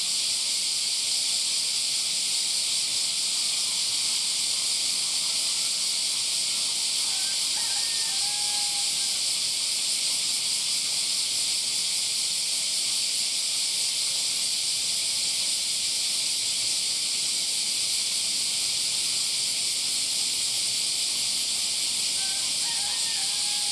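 Steady chorus of summer cicadas: a loud, even, high buzzing hiss. A bird chirps briefly twice, about seven seconds in and again near the end.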